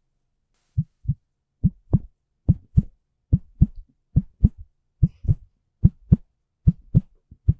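Pajama fabric handled right against a microphone as a Foley effect, giving paired low thumps, two close together and repeating a little more than once a second, like a heartbeat.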